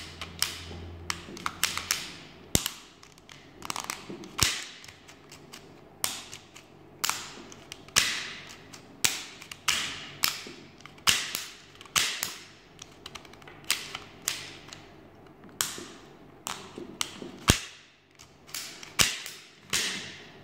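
Plywood parts of a UGEARS Wolf-01 wooden rubber-band pistol model clicking and clacking as its mechanism is worked by hand. The sharp wooden clicks come at an uneven pace, some in quick clusters.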